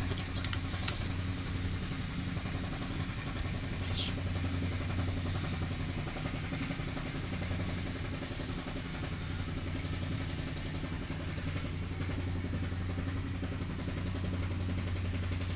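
A motor-driven machine running with a steady low hum, with a couple of faint light ticks.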